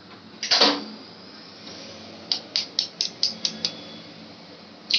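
A hen's egg being tapped against the rim of a steel bowl to crack it: a quick run of about seven sharp clicks, about five a second, then a sharper crack near the end. A brief louder sound comes about half a second in.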